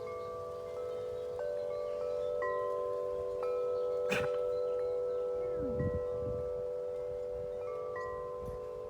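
Wind chimes ringing in strong wind: a held low chord with higher notes struck every second or so, and a sharp click about four seconds in. Wind rumbles on the microphone underneath.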